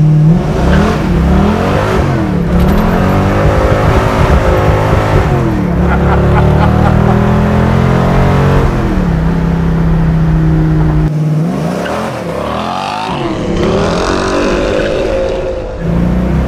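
A classic muscle car's engine heard from inside the cabin under hard acceleration. The revs climb and drop back several times as it pulls through the gears. It eases off about eleven seconds in, then pulls up again near the end.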